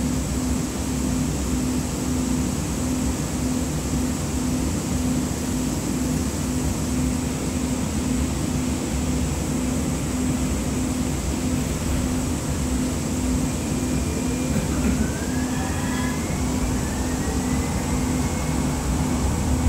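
Siemens S200 light rail vehicle heard from inside the passenger cabin while running: a steady rumble from the wheels and running gear with a steady high whine. A faint rising whine joins in about two-thirds of the way through and then holds level.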